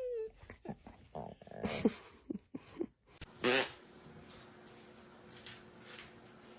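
A pet's short vocal noises, several in quick succession, with a louder one about three and a half seconds in, followed by a faint steady hum.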